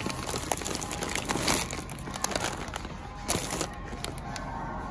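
A paper-wrapped noodle package rustling and crinkling in several short, irregular bursts as it is handled, over a steady low hum.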